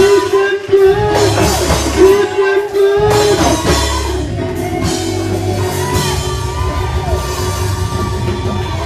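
Live gospel praise music from a church band with drum kit and keyboard. A voice sings long, bending held notes over it for the first three seconds, then the band plays on more softly with sustained chords.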